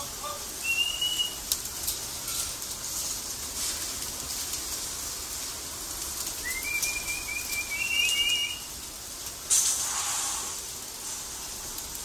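High whistling: a short note about a second in and a longer wavering one after about six seconds, over a steady hiss. A brief loud burst of noise near the end.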